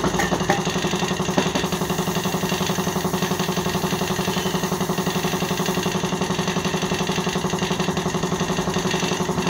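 Air compressor running steadily with a fast pulsing beat and a low hum. A hiss of air comes in over it from about two seconds in to about six seconds in.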